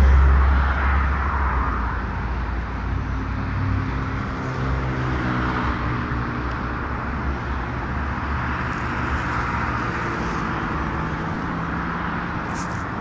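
Street traffic: a steady rumble and hiss of vehicles going by, loudest in the first second, with an engine hum running under it.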